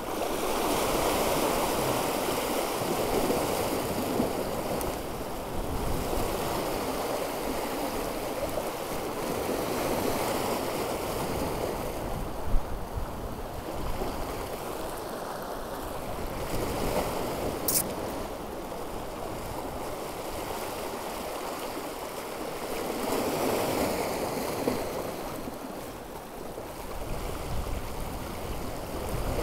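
Sea waves washing and breaking over shore rocks, a steady rush that swells and eases in several surges, with one short sharp tick about halfway through.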